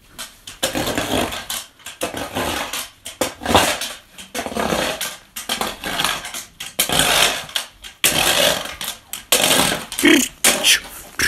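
Broom sweeping manure and old bedding across a barn floor: a run of rough scraping strokes, about one a second.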